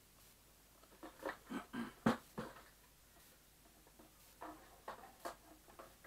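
Clicks, scrapes and knocks of an Elektrosila-2 vacuum cleaner's plastic housing and its parts being handled and turned over on a table. They come in two clusters, with the sharpest knock about two seconds in.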